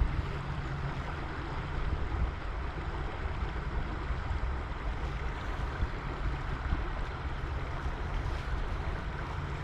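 Creek water rushing steadily, with a low wind rumble on the microphone.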